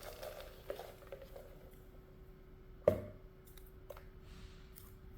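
Small handling noises and light clicks, with one sharp knock about three seconds in, over a faint steady hum.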